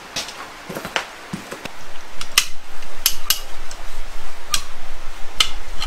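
Hand cable come-along being worked, its ratchet and steel handle giving sharp metallic clicks and clinks. They are sparse at first and come thicker and louder from about two seconds in.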